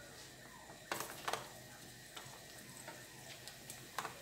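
Chopped garlic beginning to fry in olive oil in a frying pan: sparse small pops and ticks, with a few sharper crackles about a second in and one near the end.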